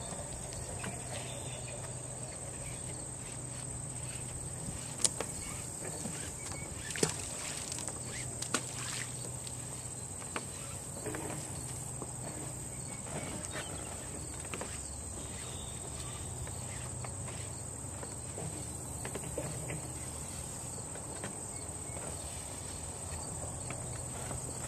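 Steady high insect trilling, with a few sharp knocks and taps about five, seven and eight seconds in.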